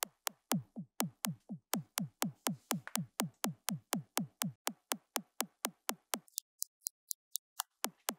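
A drum-like sample played by Ableton Live's Simpler with a pitch envelope, layered with a phase-inverted copy that should cancel it. It repeats about four times a second as a click and a short downward-sweeping thump, uneven from hit to hit. About six seconds in the thumps drop out for over a second, leaving only the clicks. The uneven cancellation is the sign of a timing issue in Live's engine.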